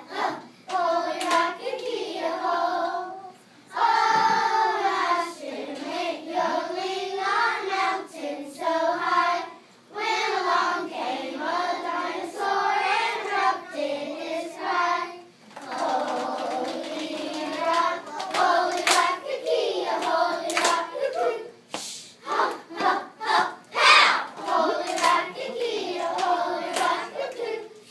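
A group of children singing together, with sharp hand claps through the song that come thick and fast in the second half.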